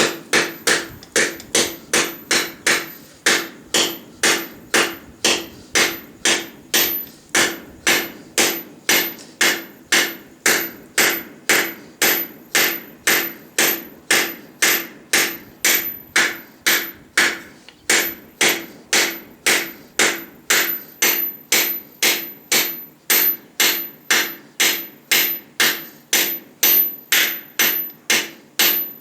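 Hand hammer striking steel on a stake anvil made from a truck axle, in a steady rhythm of about two and a half blows a second. Each blow rings with a clear metallic tone. The hammering pauses briefly about two thirds of the way through.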